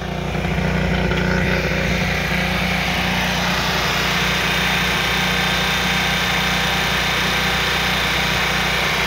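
Kohler 5EKD marine generator's engine running steadily without its sound enclosure, a constant engine hum with a hiss over it. Its cooling seawater is flowing out of the discharge hose.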